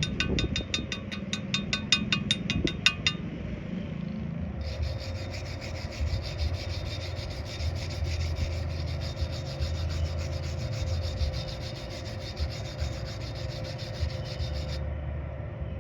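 Rapid, even scraping strokes on metal, in two spells: a short one of about eight strokes a second, then a longer, denser one starting about five seconds in that cuts off near the end.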